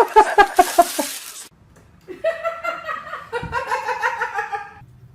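A person laughing in quick rhythmic bursts, then a second, higher stretch of laughter from about two seconds in.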